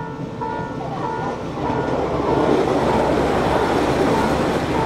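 A JR Shikoku 2000 series tilting diesel multiple unit running through a station: the engine note and the wheels on the rails grow louder about two seconds in as the cars pass close by, then hold steady. A repeating ding, a little under two a second, goes on in the background.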